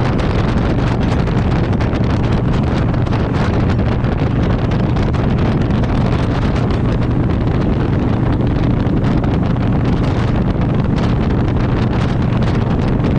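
Vehicle under way with a steady low drone and wind rushing on the microphone; the owner says the transmission is making noise.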